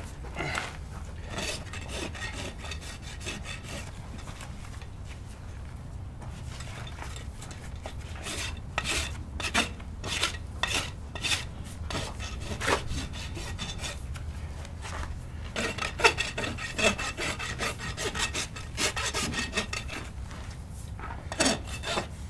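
Hoof rasp filing a bare horse hoof: repeated scraping strokes that come in runs, denser in the second half, as the hoof wall is evened all the way around.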